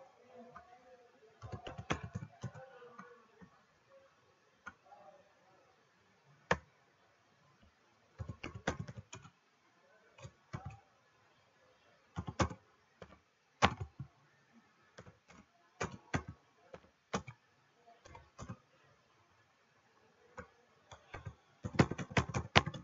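Computer keyboard typing in short bursts of keystrokes separated by pauses, with a fast run of keystrokes near the end.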